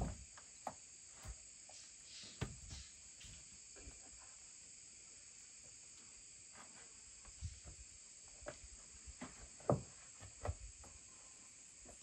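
Heavy wooden planks knocking and thudding as they are laid and shifted on a log frame: a scattered run of short knocks, the loudest near the end. Underneath, a steady high drone of forest insects.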